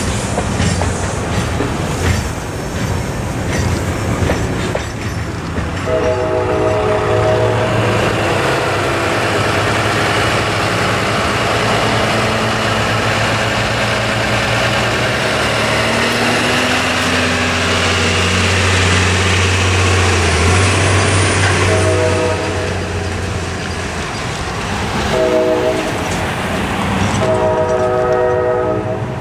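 Freight train's last cars rumbling and clacking past at the start, then the diesel locomotive's air horn sounding from down the line: one long blast about six seconds in and three more blasts near the end, the last the longest.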